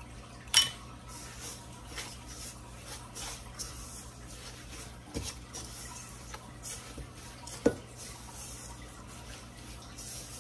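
A silicone spatula stirring and scraping thick cookie dough in a stainless steel mixing bowl, with small irregular scrapes and taps throughout. Twice, about half a second in and again near the end, it knocks sharply against the metal bowl.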